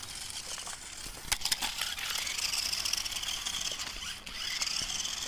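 Small electric motor and gears of a toy RC monster truck whining as it drives over dirt, with scattered clicks from grit under the tyres. The high whine rises in from about two seconds in.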